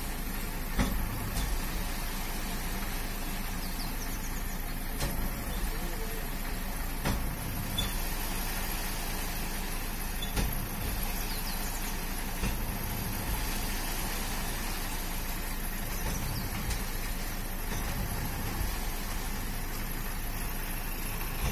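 Tipper truck's engine running steadily while sand slides out of the raised tipper bed onto a pile, with a few short knocks along the way.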